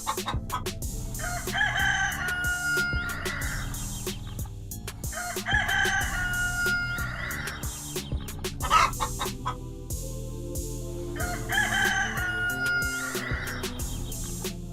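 Rooster crowing three times, each crow a long call of about two seconds, with short clucks between the crows.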